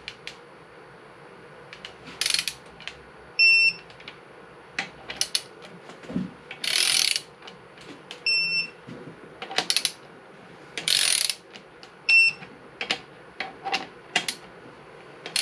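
Digital torque wrench ratcheting in several short strokes as connecting-rod bolts are tightened to 33 ft-lb. The wrench gives a short high beep three times, its signal that each bolt has reached the set torque.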